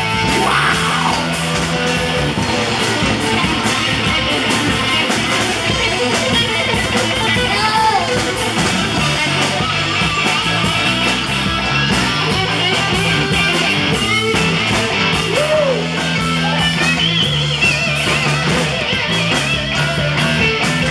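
Live rock band playing an instrumental stretch: electric guitar over bass guitar and a drum kit, loud and amplified.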